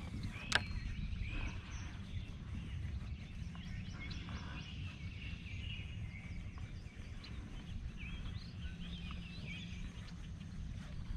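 Birds chirping on and off over a steady low rumble, with one sharp click about half a second in.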